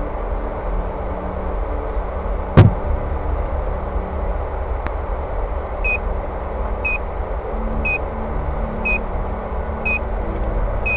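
Handling noise as a model airplane is carried and set down, with a single loud thump about two and a half seconds in. From about six seconds in, a short high electronic beep repeats about once a second.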